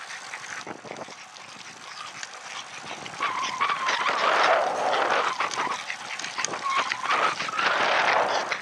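Bicycle riding along a tarmac path: a steady rush of wind over the bike-mounted camera's microphone and tyre noise, getting louder about three seconds in.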